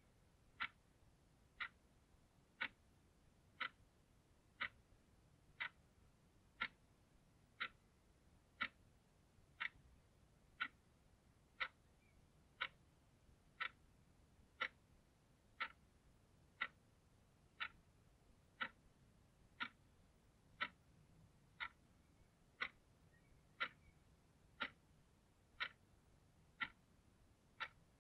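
Small blue analog alarm clock ticking once a second, a sharp, even tick with each step of the second hand.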